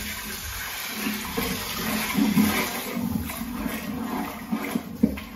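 Boiled mutton bone-marrow stock poured in a steady stream from one cooking pot into another pot of masala, splashing as it lands.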